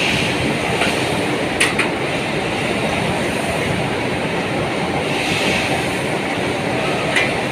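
CNC bending machine running steadily, with two sharp clicks, one about a second and a half in and one near the end.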